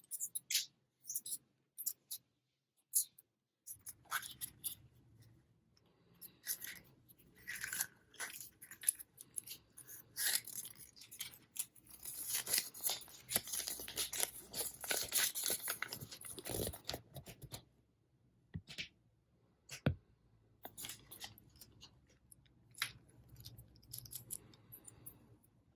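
Foil wrappers of Kinder chocolate eggs crinkling and tearing, with scattered clicks and taps from handling. The crinkling is densest and loudest around the middle.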